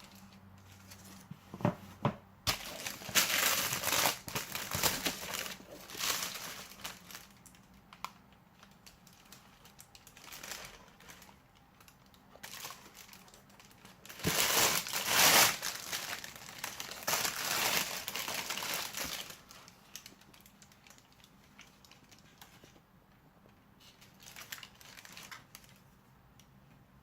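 Shoe packaging wrapping crinkling and rustling as it is handled, in two longer spells with a few sharp clicks and knocks between.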